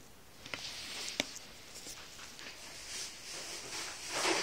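Close rustling and scuffling as a Yorkshire terrier–schnauzer puppy squirms against a hand on a stiff-fibred rug, with two sharp clicks about a second in and a louder rustle near the end.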